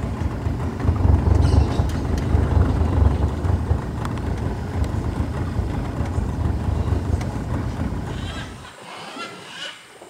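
A loud, rough low rumble that cuts off abruptly near the end. After it come a few short, high bird calls.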